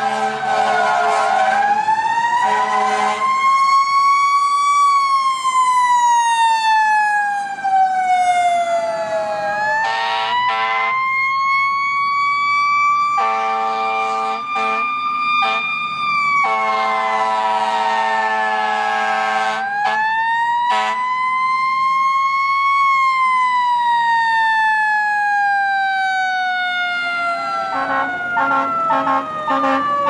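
Fire engine siren wailing slowly up and down, with several air horn blasts over it, the longest lasting about three seconds in the middle.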